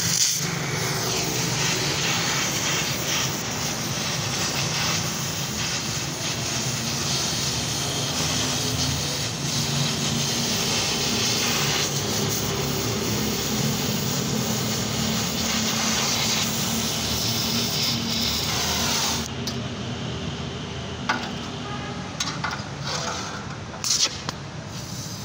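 Gas welding torch flame burning with a steady hissing rush. The hiss drops away about three-quarters of the way through, leaving a few clicks and taps.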